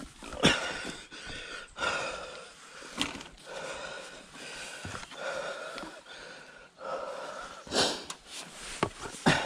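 A man breathing hard and wheezily, about one breath a second, from the effort of lifting a mountain bike over a stile, with a few sharp knocks near the end.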